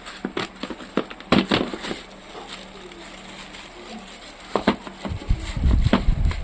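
Scattered clicks and knocks from handling the drill and its packaging, with a low rumble of handling noise about five seconds in.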